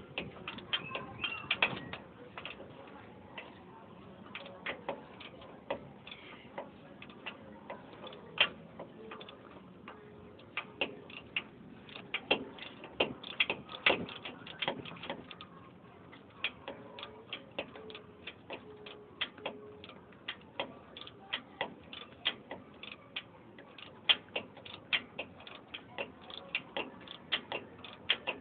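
Hand tools working a puller clamp on a truck's leaf-spring bolt, making many short sharp metallic clicks and taps that come irregularly, at times in quick runs of two or three a second.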